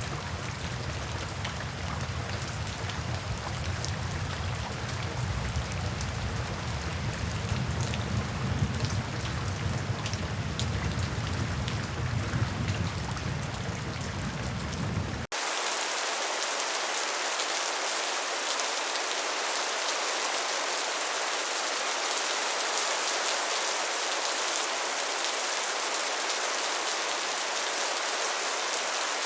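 Steady rain falling on a tin roof, with scattered drop ticks over a low rumble. About halfway through it cuts abruptly to a different rain recording, a brighter, even hiss with no low rumble.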